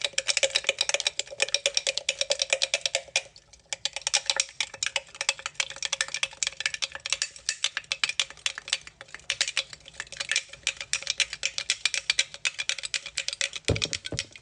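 A spoon stirring oil and seasonings in a bowl, clinking rapidly against its sides with a faint ring, pausing briefly about three and a half seconds in.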